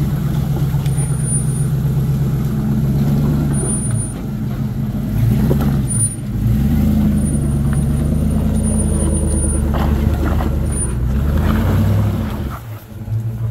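A 4x4's engine running under load on an off-road climb, its pitch rising and falling several times as the throttle is worked. The engine sound drops away about a second before the end.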